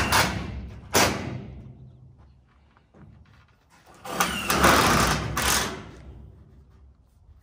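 Work noise from fixing a corrugated steel wall sheet to a steel carport frame: a sharp knock at the start and another about a second in, then a louder noisy stretch lasting about a second and a half past the middle.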